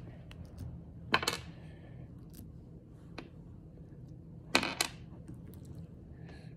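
Hands working a tub of slime with small plastic charms and clay heart slices mixed in: light clicks and taps, with two louder short handling sounds about a second in and about four and a half seconds in.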